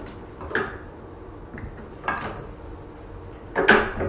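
Plastic tube fittings of a hydrodermabrasion handle being pushed into push-fit sockets on a hydrofacial machine: three sharp clicks and knocks, the last one the loudest.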